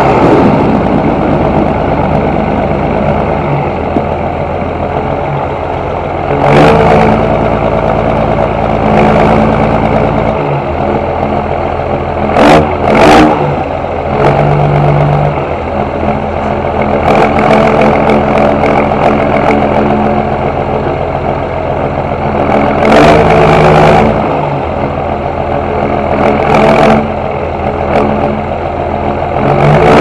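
John Deere 6820 tractor's six-cylinder diesel engine running, its note stepping up and down several times, with louder surges about six, twelve to thirteen and twenty-three seconds in.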